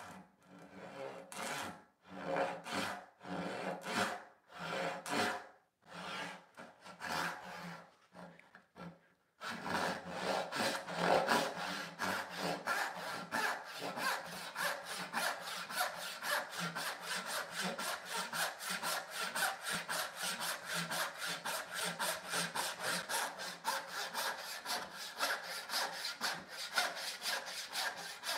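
Rob Cosman medium tenon saw cutting into a maple board. For about the first nine seconds the strokes are short and spaced, roughly one a second, as the kerf is started; then the saw settles into a steady, quicker back-and-forth through the wood.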